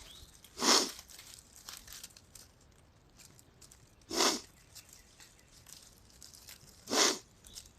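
A person sniffling three times from severe allergies: short noisy sniffs about three seconds apart, with faint small ticks between them.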